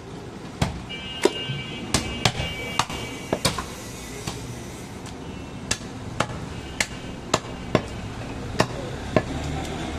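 Heavy cleaver chopping goat meat on a round wooden chopping block: a series of sharp chops, about two a second, with a pause of over a second midway while the meat is repositioned.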